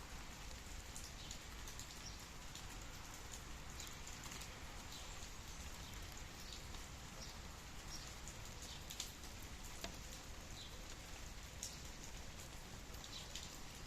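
Steady rain falling, with scattered single drops striking now and then.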